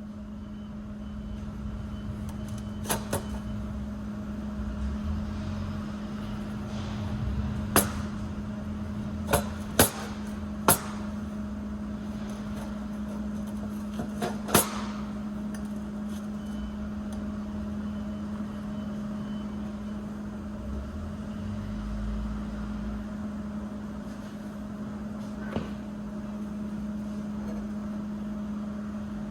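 A steady electrical hum with a handful of sharp metal clanks and knocks, most of them bunched about a third to halfway through.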